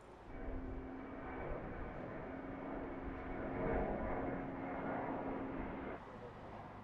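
Jet airliner passing overhead as it climbs: a steady engine drone with a held humming tone that swells toward the middle and cuts off suddenly about six seconds in.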